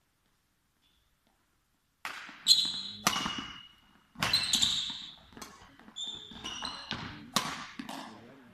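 Badminton rally: rackets striking the shuttlecock in sharp cracks, with sport shoes squeaking on the hall floor and the hits echoing in the large sports hall. It starts about two seconds in, after silence.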